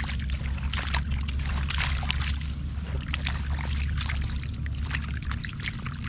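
Shallow water splashing and trickling in a mosquito-net fish trap holding catfish, with many short, quick splashes over a steady low rumble that fades about five seconds in.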